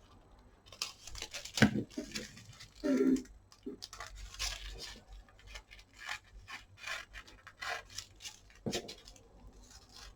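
Fabric being handled and cut by hand: a string of short, scratchy rustling and snipping noises, with a brief pitched sound about three seconds in.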